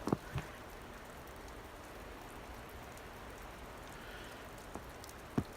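Steady soft hiss of falling wet snow, with a couple of footsteps crunching in snow at the start and one more near the end.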